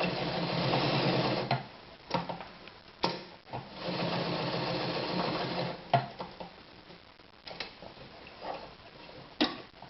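1968 Anker Phoenix Excelsior ZZ 151 sewing machine stitching in two short runs, the first about a second and a half long and the second about two seconds, with scattered clicks of handling between and after the runs.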